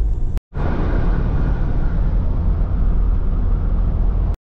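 Car driving on an asphalt road: steady low rumble of engine and tyres, cut off to silence twice for a split second, about half a second in and near the end.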